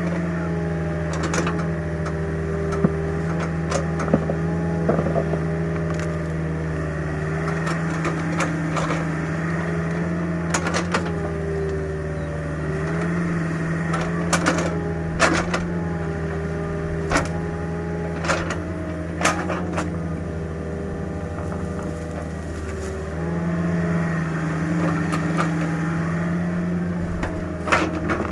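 Mini excavator running steadily, its pitch wavering as the hydraulics take load, with sharp cracks and knocks from the digging scattered throughout.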